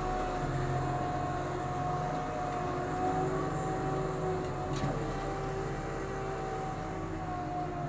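Rear-loader garbage truck running, heard from its back loading step: a steady low engine drone with a steady whine above it. One light knock about halfway through.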